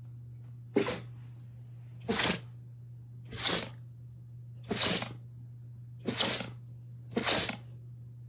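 A pet sneezing six times in a row, about once every second and a quarter, over a steady low hum.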